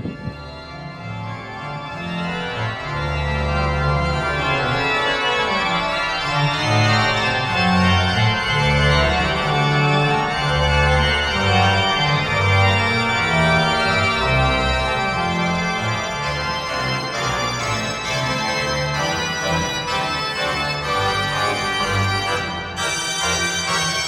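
Background music: sustained organ-like keyboard chords over a stepping bass line, swelling up over the first few seconds and then holding steady.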